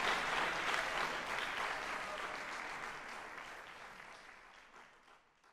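Audience applauding, a dense patter of clapping that fades steadily away to nothing.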